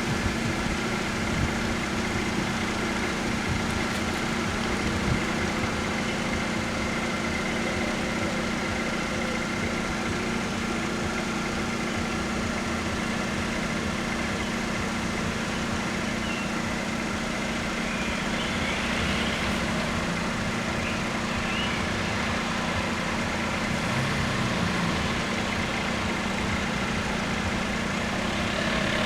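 Large diesel engine idling steadily, a constant low hum with a few fixed higher tones above it.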